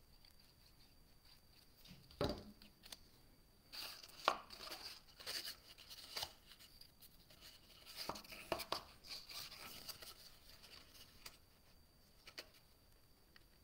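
Paper handling: a folded paper basket and small paper triangles rustling and clicking in the hands as they are fitted and pressed together, with a soft thump about two seconds in.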